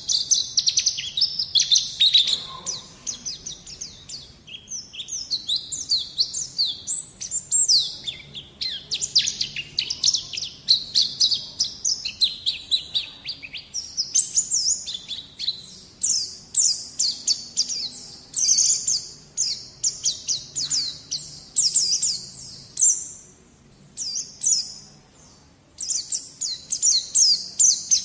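White-eye (pleci) song: a long, fast run of high, twittering chirps, broken by a short pause about 23 seconds in.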